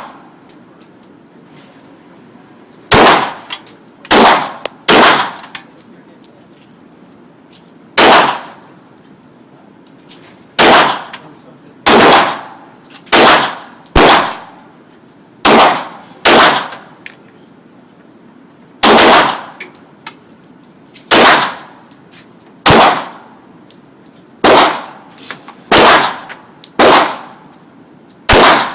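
9mm Glock pistol fired one shot at a time, about seventeen shots spaced roughly one to three seconds apart, each loud crack followed by a short ringing echo.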